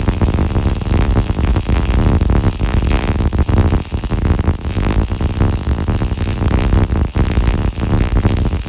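An electric welding arc crackling and sizzling steadily while a weld bead is run along a steel crossmember, with brief dips in the crackle about four and seven seconds in.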